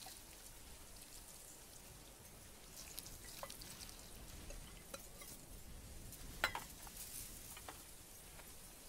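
Faint handling sounds of a small steel pot: a few soft taps and clicks, the clearest a short metallic clink about six and a half seconds in, over a quiet outdoor hiss.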